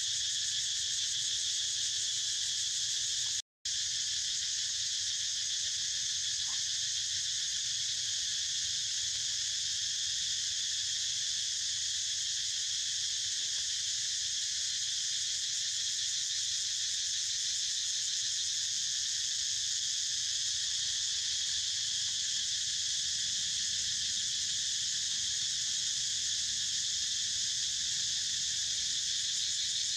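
Steady, high-pitched insect chorus with no change in rhythm or pitch; the sound cuts out completely for a moment about three and a half seconds in.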